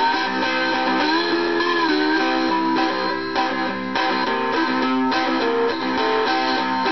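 Four-string cigar box guitar with a piezo pickup, played through a small 9-volt cigar box amp: a slide blues riff, with notes sliding up and down in pitch about a second in.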